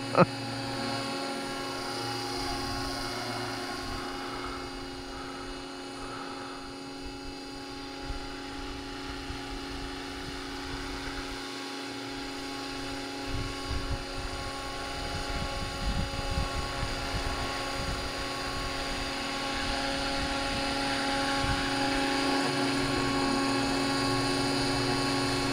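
Radio-controlled scale helicopter in flight: a steady, even-pitched whine from its rotors and drive, a little fainter in the middle as it flies away and louder again near the end as it comes back to land on the pad.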